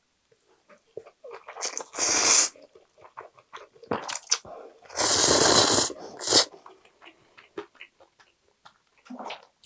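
Instant ramen noodles being slurped loudly into the mouth: a short slurp about two seconds in and a longer one around five seconds, ending with a quick extra suck. Soft wet chewing clicks fill the gaps between.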